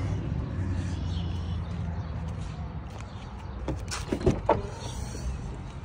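Low vehicle rumble fading out, then a few sharp clicks and knocks about four seconds in as the Tahoe's driver door latch is pulled and the door swings open.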